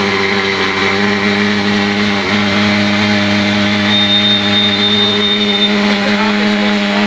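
Thermal fogging machine running steadily after repair, a loud, even drone of unchanging pitch. A faint high whistle sounds for about two seconds midway.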